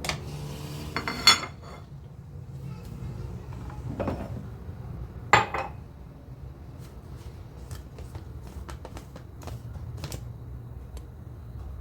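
Kitchenware being handled: two sharp clattering knocks about a second in and again past five seconds, then a string of light clicks and clinks, over a steady low hum.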